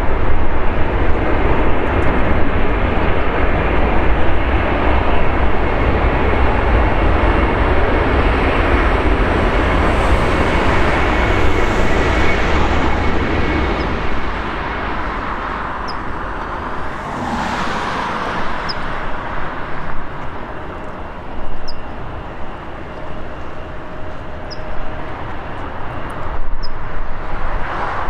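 Twin General Electric CF6-80E1 engines of an Airbus A330-200 at takeoff thrust, a loud jet roar with deep rumble during the takeoff roll and climb-out, growing fainter from about halfway through as the aircraft departs.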